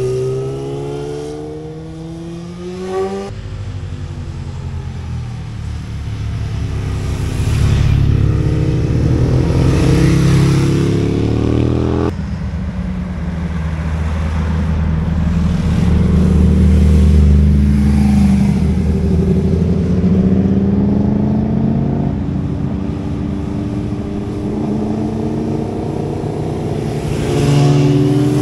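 Motorcycles and cars passing one after another through a hairpin bend, their engines rising and falling in pitch as they work through the turn and accelerate away. The sound changes abruptly about three seconds in and again about twelve seconds in.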